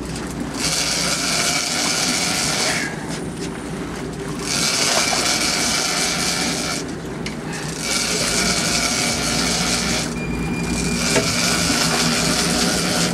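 Big-game fishing reel's drag buzzing as a hooked blue marlin pulls line off, in four runs of two to three seconds with short pauses between, over the boat's steady engine hum.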